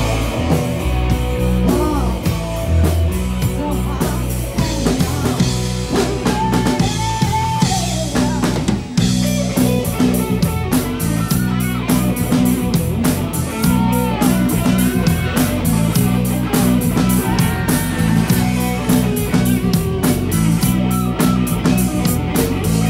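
Live rock band playing an instrumental passage: drum kit with cymbals driving a steady beat under electric guitars and bass guitar, with no singing.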